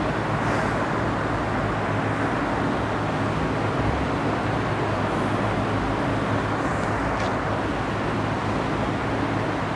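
Steady background noise with a constant low hum and no speech.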